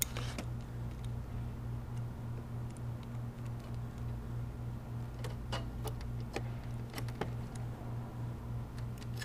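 A few sharp plastic-and-metal clicks as pliers squeeze a red tap splice connector shut over a wire, about five seconds in. Under them runs a steady low hum that pulses about four times a second.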